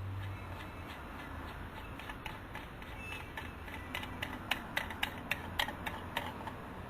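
Irregular run of small clicks and taps from handling an instrument gauge and its mounting hardware while fitting it into an aircraft instrument panel. The clicks start about two seconds in and come thickest near the end, over a low steady hum.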